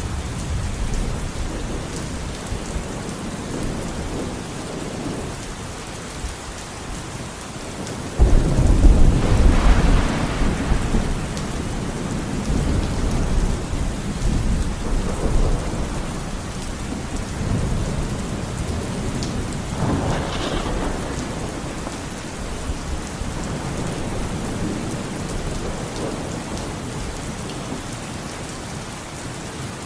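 Steady rain in a thunderstorm. About eight seconds in, a sudden loud thunderclap breaks in and rumbles on for several seconds. A lighter roll of thunder follows around twenty seconds in.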